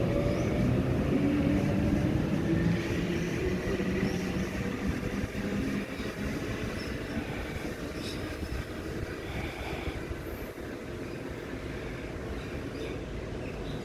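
Sydney electric suburban train pulling away, its traction motors whining upward in pitch over the rumble of the wheels, then fading to a lower rumble as it recedes.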